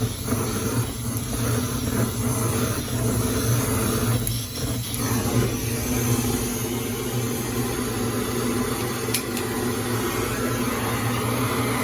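Handheld gas blowtorch flame hissing steadily, with one sharp click about nine seconds in.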